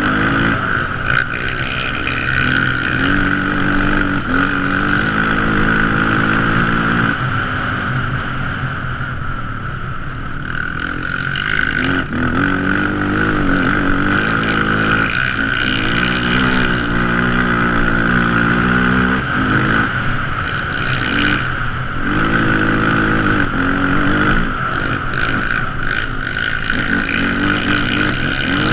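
ATV (quad bike) engine running under way, revving up and easing off again and again as it is ridden, with a steady high whine throughout.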